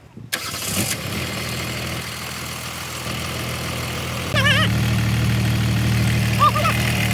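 Rebuilt Jingong 30 engine starting up and running steadily after its overhaul, growing louder as it speeds up about four seconds in. Two short high chirps sound over it later on.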